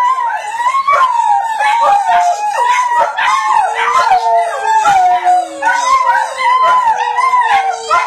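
Large dog howling: long, wavering howls that rise and fall in pitch without a break. A second, lower howl overlaps from about halfway through.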